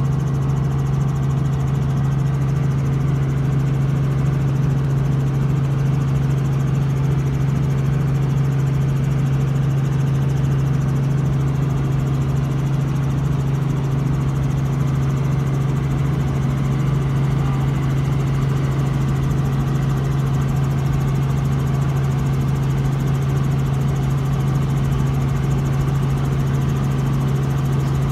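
Helicopter in flight, heard from inside the cabin: the engine and rotors make a loud, steady drone with a strong deep hum that does not change.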